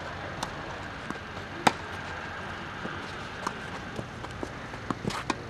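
Tennis rally: sharp pops of racket strings hitting the ball, the loudest about one and a half seconds in, with fainter hits and bounces from the far end of the court and a quick cluster of them near the end.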